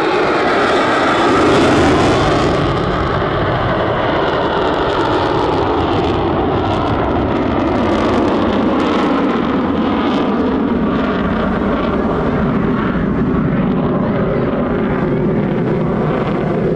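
F-35C Lightning II's single Pratt & Whitney F135 turbofan running in afterburner as the jet maneuvers overhead: a loud, continuous roar, loudest about two seconds in, turning rough and crackling between about five and ten seconds in.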